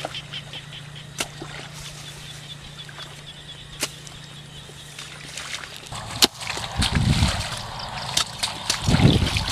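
Water sloshing and splashing as it is stirred by hand-fishing, with louder splashes about seven and nine seconds in. Until about six seconds in, a steady low hum runs beneath it, with scattered small clicks.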